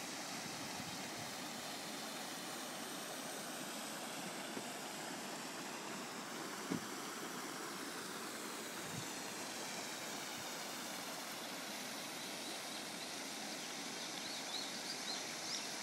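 Steady rush of running water, even and unbroken, with a soft knock about seven seconds in and a few faint high chirps near the end.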